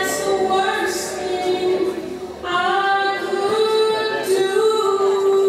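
A song with a woman singing over backing music. She holds one long note through the second half, while the bass drops out about halfway through.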